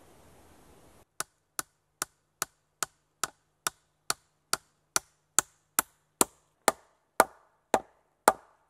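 Hammer driving a nail through crossed birch poles: about seventeen sharp, evenly paced blows, a little over two a second, starting about a second in. The later blows are louder and ring deeper.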